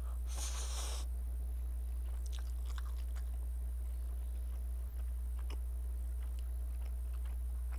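Instant black-bean noodles slurped into the mouth once, near the start, then soft chewing with scattered faint wet clicks, all over a steady low hum.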